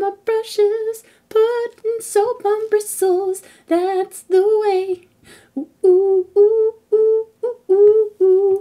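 A woman singing a wordless tune in short held notes, half humming, with no instruments.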